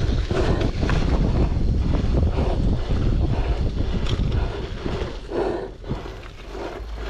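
Wind buffeting the microphone as a heavy low rumble. It eases about four and a half seconds in, leaving a few short softer bursts.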